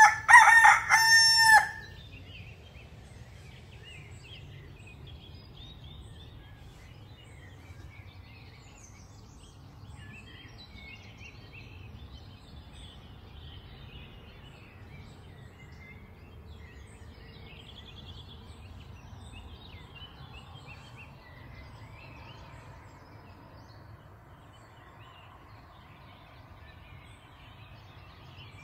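A rooster crows once, loud, in the first two seconds. Then songbirds chirp faintly and on and off over a low, steady background noise.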